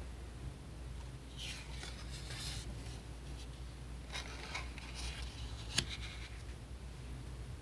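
Stiff paper sample cards handled and slid over one another: a few short rustling scrapes, with one sharp tap near the end of the handling as a card is set down.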